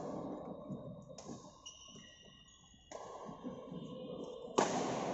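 Badminton shuttlecock struck with a racket on an indoor court: one sharp crack about four and a half seconds in, the loudest sound, echoing in the hall. Before it come a few thin high squeaks and the noise of play.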